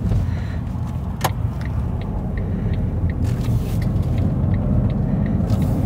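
Smart ForTwo 451's small three-cylinder petrol engine and road noise heard from inside the cabin: a steady low drone that grows slowly louder in the second half as the car picks up speed. A single sharp click sounds about a second in.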